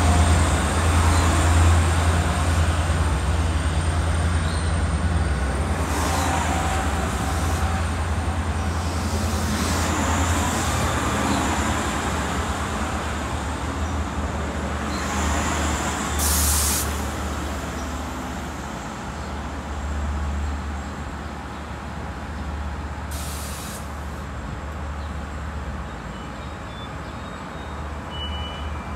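Diesel-hauled Long Island Rail Road train's locomotive engine running with a heavy low rumble that slowly fades. Two short hisses of air, typical of air brakes, come about halfway through and again near three quarters of the way.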